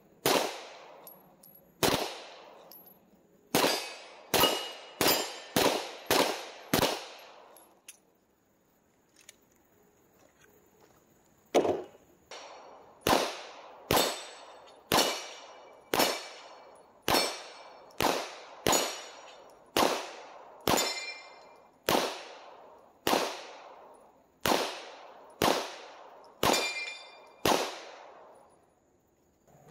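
Glock 17 9mm pistol fired unsuppressed in single shots, about one a second, with some hits ringing on steel targets. There are about seven shots, a pause of about four seconds, then a longer string of about eighteen.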